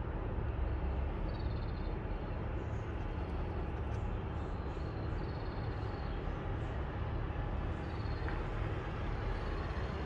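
Steady low rumble of distant road traffic, with a short high chirp repeating every couple of seconds.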